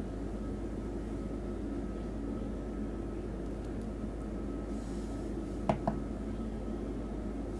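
Steady low background hum with a faint steady high tone, and two small sharp clicks close together about six seconds in.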